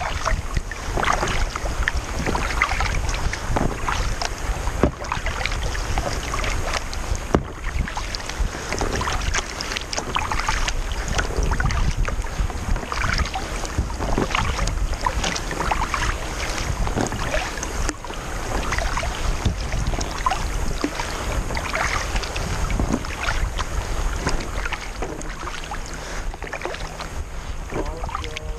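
Sea kayak under paddle: water splashing from the paddle strokes about once a second and rushing along the hull, with wind rumbling on the deck-mounted microphone.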